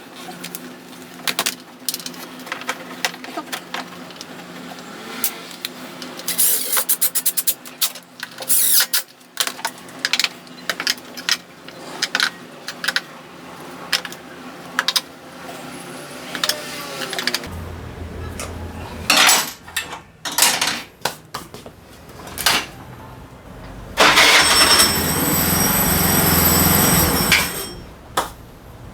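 Metal hand tools and scooter engine parts clicking and knocking during reassembly, then a loud steady mechanical whirr for about four seconds near the end that cuts off abruptly.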